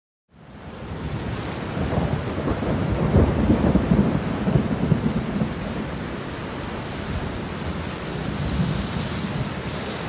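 Steady rain with a long roll of thunder, fading in from silence just after the start; the low rumble is heaviest a couple of seconds in, then eases back under the rain.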